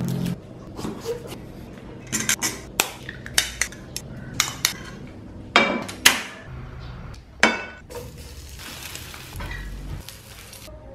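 Kitchen utensil clatter: a knife, bowl and plates knocking and clinking in irregular strokes while food is prepared, with a few louder ringing clinks about halfway through.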